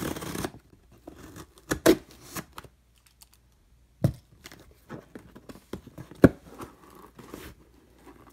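A scissor blade drawn along packing tape on a cardboard box, slicing the seam and stopping about half a second in. Then scattered taps and knocks of hands handling the box and its flaps, with a few sharp clicks.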